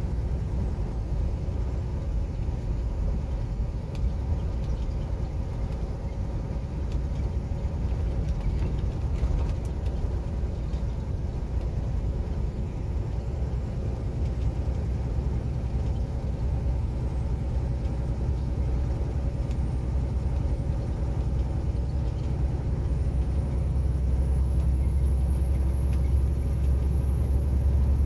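Semi truck on the move: steady low engine and road rumble heard from the cab, growing heavier in the last few seconds.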